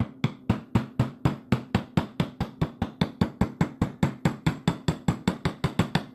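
Small hammer tapping a pin punch to drive out the front-sight roll pin of a Smith & Wesson 686 revolver: a steady run of light, quick metal taps, about five or six a second, even in loudness, stopping just before the end.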